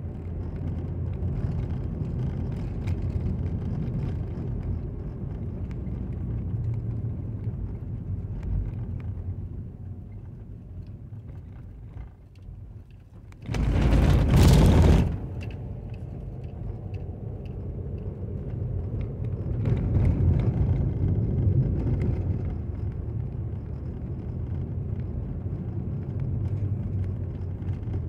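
Car driving along a rough asphalt road, heard from inside the cabin: a steady low rumble of road and engine noise. About halfway through, a loud rush of noise lasts about a second and a half.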